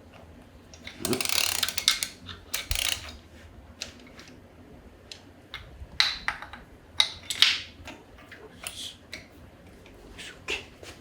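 Irregular metallic clicking and clatter of hand tools and parts on a Porsche 997 Carrera S engine being reassembled, in scattered bursts rather than an even rhythm.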